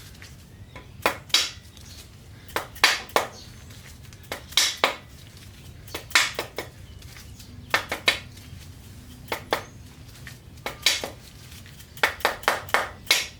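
Metal engine parts and tools clinking against each other in short clusters of two or three sharp clinks every second or two, over a low steady hum.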